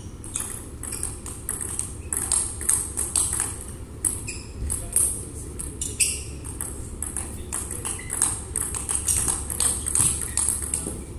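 Table tennis rally: the celluloid-style ball clicking in quick succession off the table and the players' rubber-faced paddles, with a little ringing in the hall after each hit.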